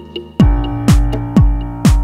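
Electronic dance background music: a deep kick drum comes in about half a second in and beats about twice a second under sustained synth notes and light ticking percussion.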